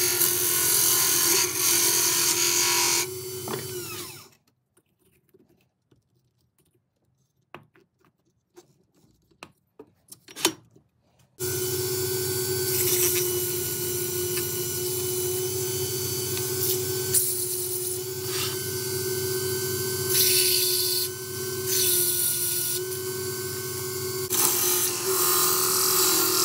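Wood lathe running with a steady hum while a hand-held turning tool cuts into a spinning oak box, the cutting hiss coming and going. About three seconds in, the lathe winds down with a falling pitch and stops, leaving near silence with a few small knocks. At about eleven seconds it is suddenly running and cutting again.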